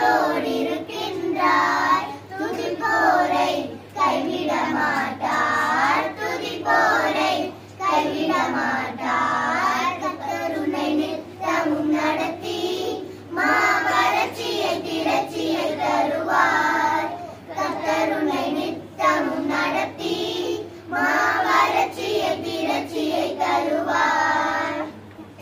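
A group of children singing together in short phrases with brief pauses between them.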